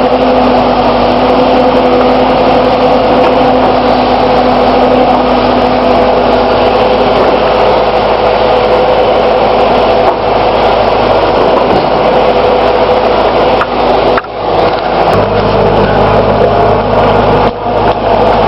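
New Holland skid steer's engine running steadily and loud. Its note shifts a couple of times as the machine works, with a brief drop in level twice near the end.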